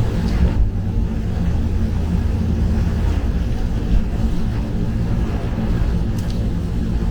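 Steady driving noise inside a Mazda3's cabin at expressway speed in heavy rain: a low rumble of tyres on the wet road under an even hiss of rain and spray, let in through a slightly open window.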